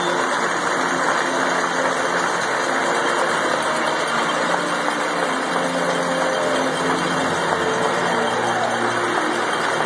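Arena crowd applauding and cheering in a long, steady ovation.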